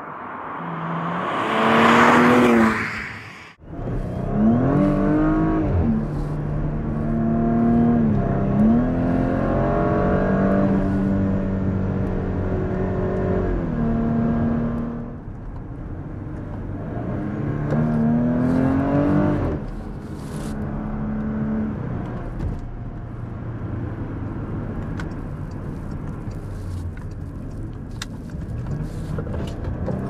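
A 2018 Porsche Cayenne S, with its 2.9-litre twin-turbo V6, drives past and grows louder up to a peak about two seconds in. Then, heard from inside the cabin, the V6 accelerates through several upshifts, its pitch climbing and dropping back at each shift. It eases to cruising, with one more short burst of acceleration later on.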